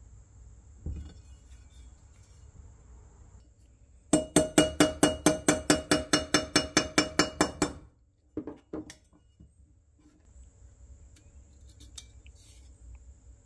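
Rapid light hammer taps on a pin punch, about five or six strikes a second for roughly three and a half seconds, each with a short metallic ring, as the punch works a pin in a 1960s Duncan parking meter's metal housing. A couple of duller knocks follow shortly after.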